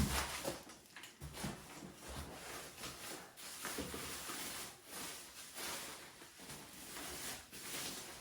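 Unpacking noises: a heavy knock at the start, then irregular rustling of packing material and small knocks as kit parts and boxes are handled.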